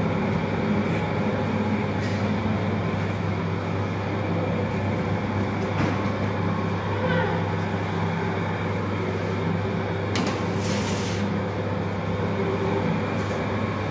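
Steady low hum and rumble of bakery machinery running, with a brief hiss about ten seconds in.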